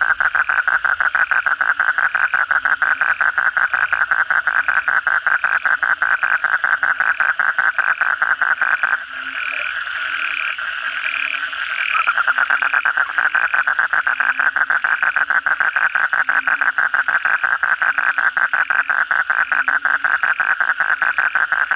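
A male Asian common toad (kodok bangkong) giving its advertisement call close up: a long, very rapid trill that breaks off about nine seconds in and starts again some three seconds later. Other frogs call more softly behind it.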